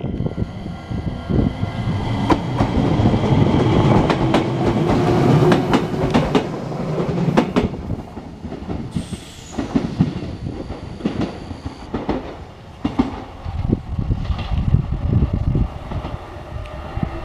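Enshu Railway 2000 series electric train (set 2007) running past: a motor whine rises in pitch over the first several seconds, then the wheels beat out a clickety-clack over the rail joints.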